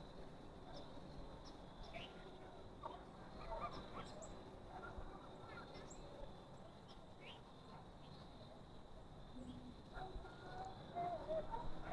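Scattered short bird chirps and calls, some in little clusters, over a steady high thin hum.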